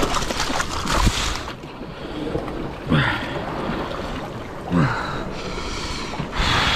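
Sea waves surging and washing over the rocks in repeated surges about every two seconds, with wind buffeting the microphone.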